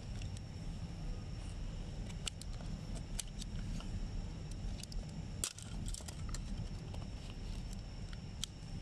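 Scattered sharp clicks and taps of hard plastic as Mercedes-Benz W213 E-Class dashboard air vent housings are handled and pried at with a plastic trim tool, the loudest about five and a half seconds in. Under them runs a steady low rumble.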